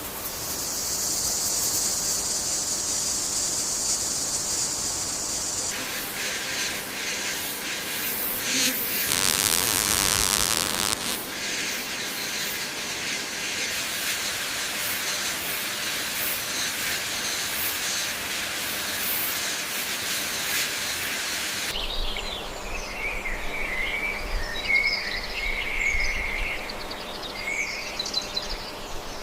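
Shifting outdoor nature ambience. A steady high insect drone gives way about six seconds in to hiss with scattered ticks, and near the end to chirping birds over a low rumble.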